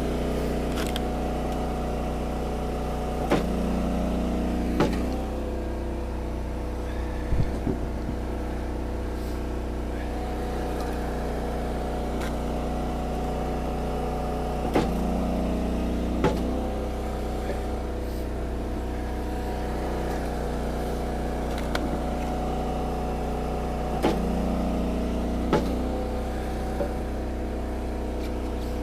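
Gas engine of an Eastonmade 22-28 hydraulic firewood splitter running steadily. Three times the tone changes for about a second and a half, with a knock at the start and end of each, as the ram works a round through the wedge.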